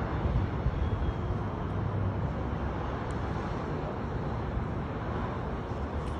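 Steady low rumble of outdoor city ambience: distant traffic noise, even and without distinct events.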